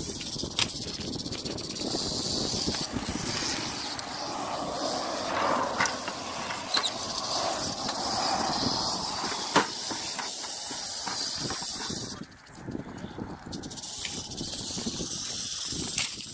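Rattlesnake rattling, a steady high buzzing hiss that drops out for about a second near the end, then resumes. Low rumble and a few sharp clicks run under it.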